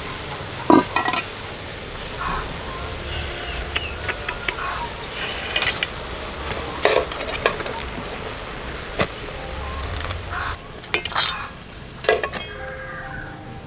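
Metal cookware clinking and knocking: an aluminium pot, its lid and a metal plate struck several times, a few seconds apart, over a steady hiss.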